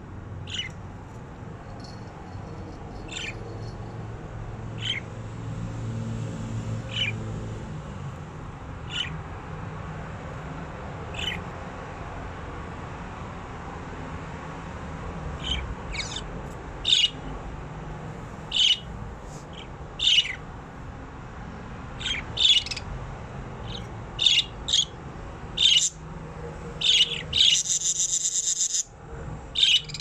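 Pet budgerigars chirping in their cage. Short high calls come a few seconds apart at first, then grow frequent in the second half, with a rapid rasping call lasting about a second and a half near the end.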